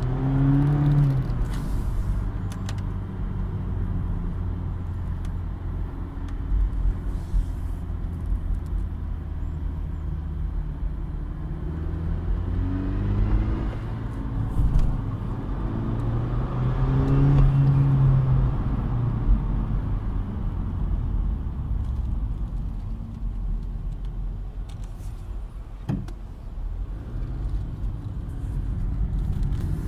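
BMW 116i engine running cold and picking up revs three times, its pitch rising with each acceleration. This is the engine noise that comes only when accelerating from cold.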